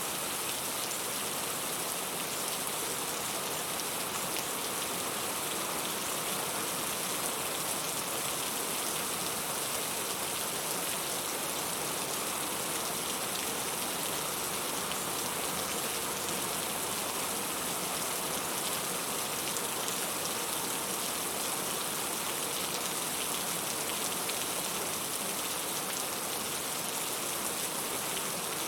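Steady rain falling, an even hiss of raindrops that holds at the same level throughout.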